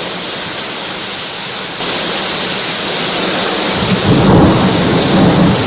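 Heavy rain pouring down in a steady hiss. About four seconds in, a deep rolling rumble of thunder builds over it and is the loudest part.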